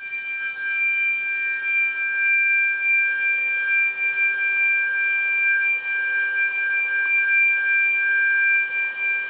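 A struck metal tuning fork ringing with a steady, clear high tone. Its brighter overtones fade over the first few seconds while the main tone holds.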